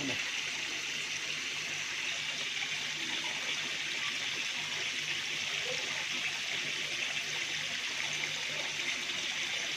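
Steady rush and splash of water pouring into a clownfish tank of a recirculating aquaculture system, with a faint low hum underneath.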